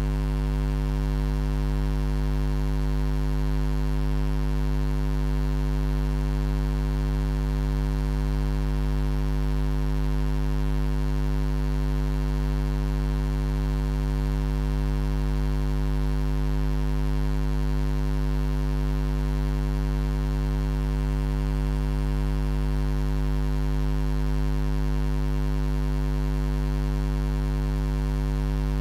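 A steady low buzzing hum, unchanging in pitch and level throughout.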